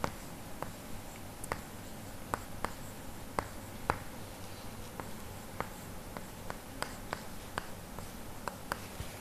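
A stick of chalk writing on a blackboard: faint, short taps and scratches at irregular intervals, about two a second.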